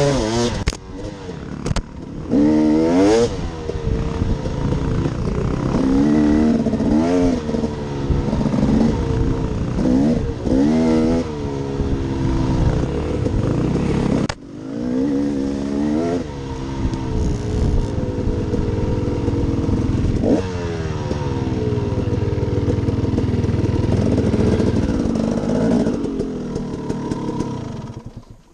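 2015 KTM 250 XC two-stroke dirt bike engine, heard close from the rider's helmet, revving up and down repeatedly while riding a trail. It dips sharply about halfway through, then settles and drops away near the end as the bike comes to a stop.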